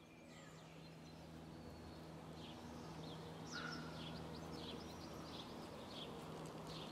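Birds chirping in quick, short notes over a steady low hum, the whole fading in during the first few seconds.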